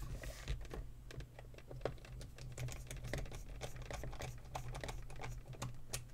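Quick, irregular small plastic clicks and taps from hands pressing and fitting parts onto a headset ear cup.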